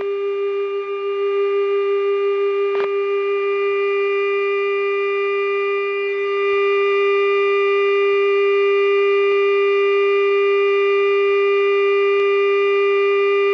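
Steady electrical hum with a higher whine above it inside a KC-135 cockpit, typical of the aircraft's 400-cycle AC power system. A single click about three seconds in.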